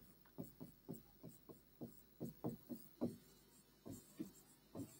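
Faint, short scratches and taps of a stylus writing letters on a touchscreen display, about fifteen quick strokes.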